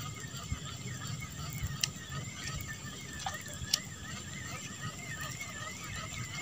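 Spinning or baitcasting fishing reel cranked during a lure retrieve: a faint high whine that wavers up and down several times a second, with two sharp clicks and wind rumble on the microphone.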